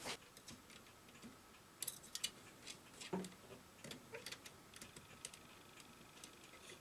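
Faint, scattered small clicks and taps as fingers fit a new rubber drive belt around the plastic pulleys and gears inside a Sanyo Betamax recorder's mechanism, with a small cluster of clicks about two seconds in.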